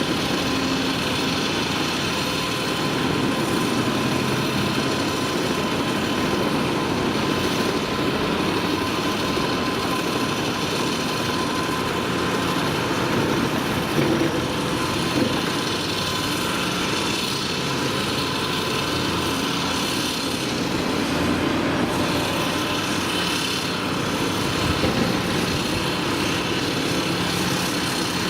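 Volvo EC 300 DNL tracked excavator's diesel engine running steadily under work, with a couple of brief knocks about halfway through and again near the end.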